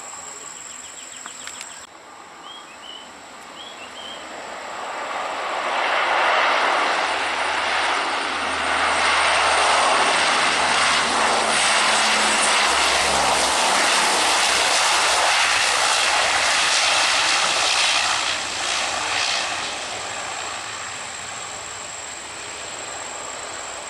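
Jet airliner's engines passing close by: the jet noise swells up from about four seconds in, holds a loud rush for around twelve seconds, then fades away.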